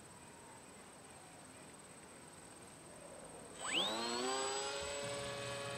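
Electric motor and propeller of a low-passing RC glider throttling up: after a quiet start, a quick rising whine about three and a half seconds in that settles into a steady, loud whine.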